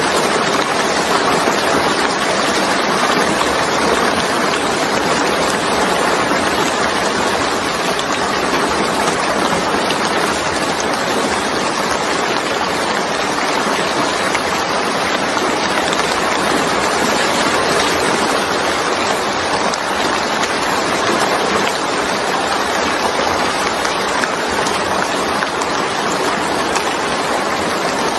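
Steady rain falling and splashing on a wet surface, an even, unbroken hiss.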